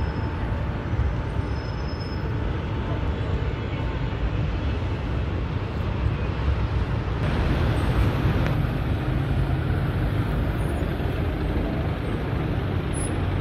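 City road traffic, with double-decker buses and cars, making a steady low rumble; a louder vehicle passes about halfway through.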